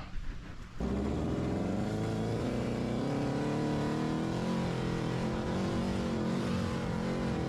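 An engine running steadily at a fairly even speed, with only slight rises and falls in pitch. It comes in abruptly about a second in.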